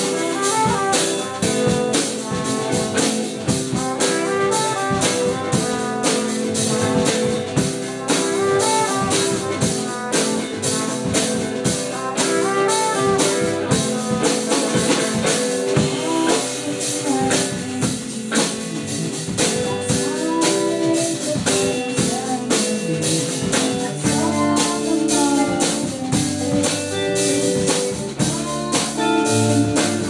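A small band playing a song together: a drum kit keeping a steady beat under guitar and other instruments.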